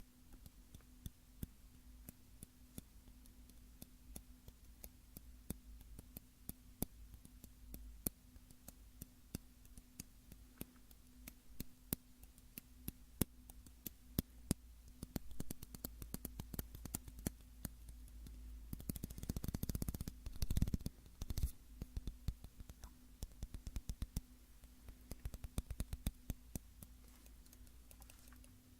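Fingertips tapping on a small hard object, irregular and gentle, with quicker bursts of rapid tapping about halfway through and a dense flurry of fast taps about two-thirds of the way in.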